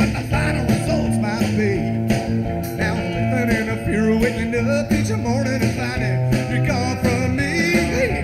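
Live band playing an uptempo country-rock song on electric guitars, bass and drums, with a wavering lead guitar line.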